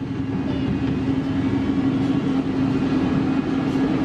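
Doosan DX300LCA crawler excavator's diesel engine running steadily with a strong, even hum, growing louder over the first second.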